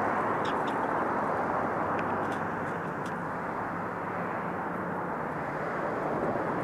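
Steady outdoor background rush, with a few short, faint high chirps in the first three seconds.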